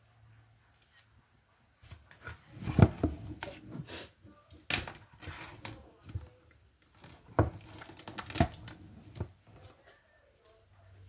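Irregular knocks, bumps and rustles of things being handled on the table right by the microphone, starting about two seconds in, the loudest a thump near the start of the run.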